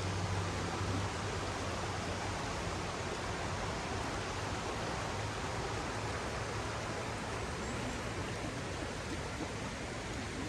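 Rushing water of the Oirase mountain stream: a steady, even hiss of water flowing over rocks. A low hum sits under it for the first few seconds and fades away.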